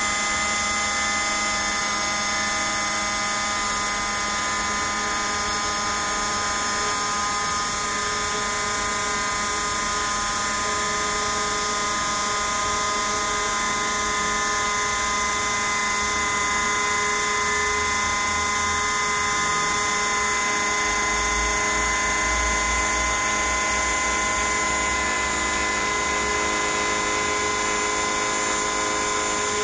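Small CNC router carving: its spindle motor runs with a steady high-pitched whine of several tones as the cutter works across the block.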